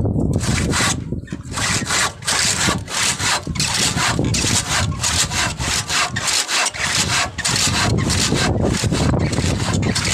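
Hand saw cutting through wood in steady back-and-forth strokes, about three a second, with a brief pause about a second in.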